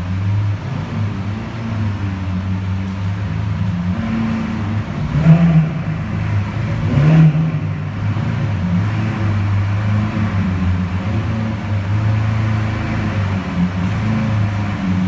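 Lamborghini Aventador LP700-4 Roadster's 6.5-litre V12 idling steadily, blipped twice with short revs about five and seven seconds in.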